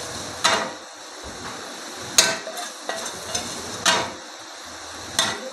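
Metal ladle stirring and scraping in a steel frying pan of curry gravy, with four sharp clanks of the ladle against the pan spread through, over a low steady hiss.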